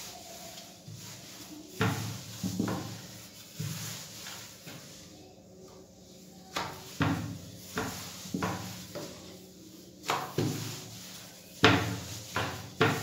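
Wooden rolling pin rolling naan dough out on a wooden chopping board: irregular wooden knocks and short rumbles as the pin and board move, about a dozen in all, the loudest knock near the end.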